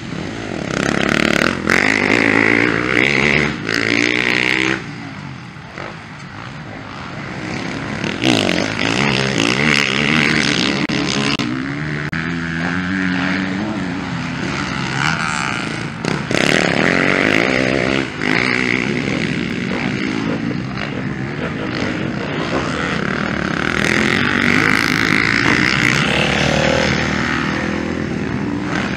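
Motocross bike engines revving hard and falling back as riders pass one after another, the pitch climbing and dropping with each throttle change. There is a brief lull about five seconds in.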